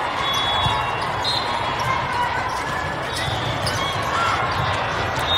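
Busy ambience of a large hall with several volleyball games going on: balls thudding on hands and floor from many courts, short high squeaks, and a steady wash of crowd chatter.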